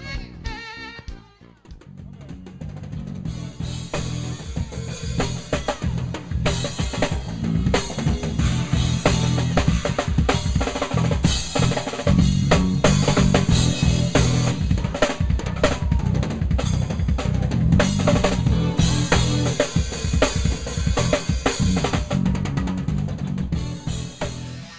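Live drum kit played hard in fast, busy fills and rolls across snare, toms, bass drum and cymbals. It grows louder over the first few seconds and cuts off suddenly at the end.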